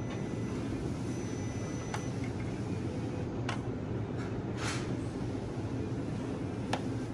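Steady low background rumble with a few light metallic clicks and one short hiss about four and a half seconds in, as a compression tester's hose adapter is handled at a spark plug hole of a 1.6 litre engine that is not running.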